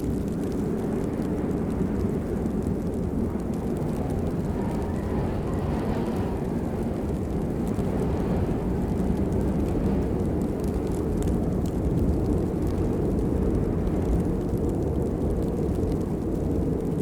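Steady rain, heard as a dense, deep rushing noise with little high end and no separate drops standing out.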